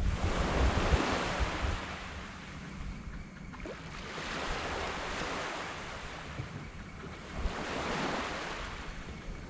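Gentle tropical waves breaking and washing up a sand beach in three swells of surf: one at the start, one about four seconds in and one near the end, each rising and fading over a second or two.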